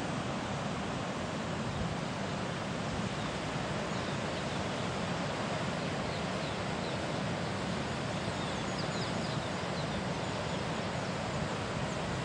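Steady rush of Atlantic surf breaking on a rocky beach, mixed with strong wind buffeting the microphone.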